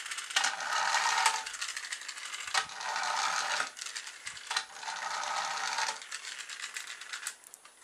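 Toy car's small electric motor and plastic gearing whirring with a rattle, in about four spells of a second or two with short breaks. The motor is running on a supercapacitor charged straight from solar panels.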